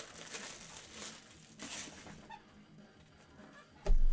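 Trading card packs and cards being handled on a table: a few soft rustles and crinkles of wrappers and card stock, then a sudden loud low thump near the end.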